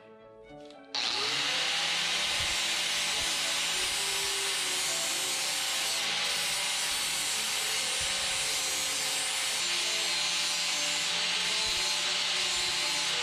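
Angle grinder switched on about a second in, its motor spinning up with a short rising whine, then running steadily as it grinds on stainless steel exhaust tubing.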